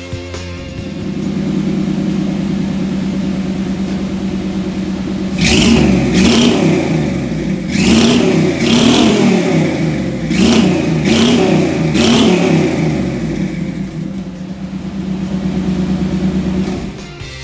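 V8 engine of a 1960 International Harvester pickup on a 1993 Buick Roadmaster chassis, idling steadily and then blipped up and down several times in quick succession before settling back to idle. The sound cuts off abruptly near the end.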